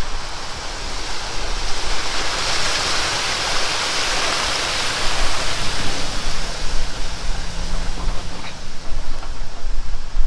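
Water rushing over a creek weir, a steady wash of noise that grows louder for a few seconds and then eases off again.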